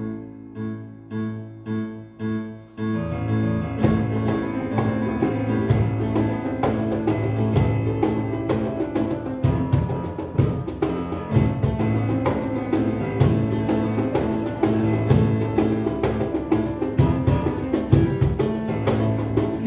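Instrumental music: a few slow, pulsing notes, then from about three seconds in a fuller, louder passage with a fast, steady beat.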